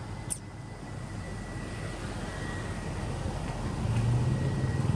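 A motor vehicle's engine running, growing steadily louder and strongest near the end. A thin steady high tone runs underneath, and there is one short click about a third of a second in.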